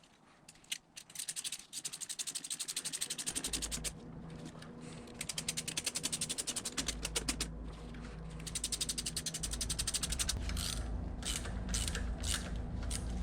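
A hand ratchet clicking in quick runs of many clicks, with pauses between runs. A low steady hum comes in a few seconds in and continues under the clicking.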